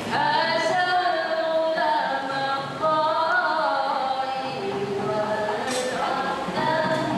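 Women's nasyid group singing unaccompanied in harmony, with long held notes that glide between pitches.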